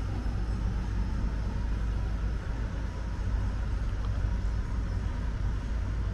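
The AmaMagna river cruise ship's engines running steadily as it moves under way out of a lock: a continuous low rumble.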